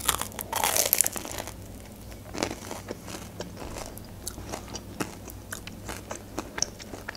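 A person biting into a crispy fried McDonald's item, close to the microphone: a loud crunch over the first second and a half, then chewing with small crunches and wet mouth clicks.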